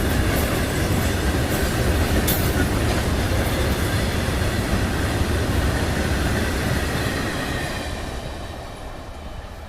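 Freight train of oil tank wagons rolling past: a steady rumble with wheels clicking over rail joints, fading away near the end as the train moves off.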